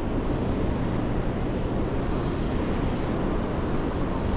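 Steady rushing roar of high water pouring through a dam's open spill gates and churning in the tailwater below.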